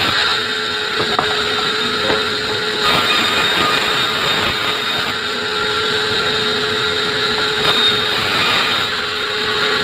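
Sawmill saw cutting through hard acacia wood: a loud, steady grinding hiss with a constant whine running under it.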